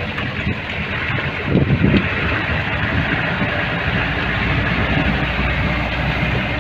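4x4 jeep running over a rough mountain dirt track, heard from inside the cab: a steady engine and road rumble with the body rattling, and a few heavier jolts about a second and a half in.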